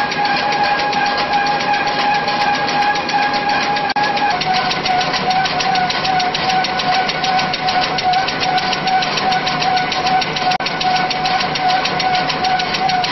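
N-fold hand towel converting machine running at speed: a steady mechanical whine with a continuous hum. About four seconds in the whine drops slightly in pitch and a rapid, even ticking from the folding and cutting rolls comes in.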